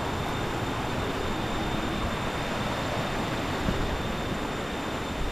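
Steady rushing of waterfall water.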